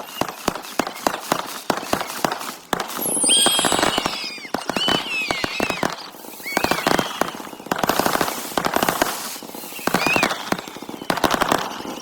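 Firecrackers going off in rapid, irregular crackling pops, with a crowd whooping and screaming over them.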